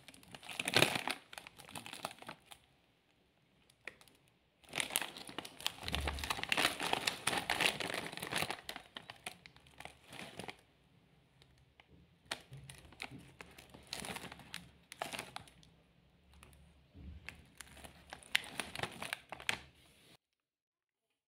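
Foil-lined snack packet of potato rings crinkling and rustling as hands handle and shake it, in bursts with short pauses. The sound cuts off suddenly near the end.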